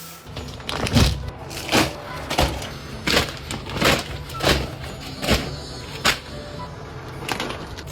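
Food being chopped on a cutting board with a knife: about nine heavy strokes, each landing with a sharp chop and a thud, at an uneven pace of roughly one stroke a second.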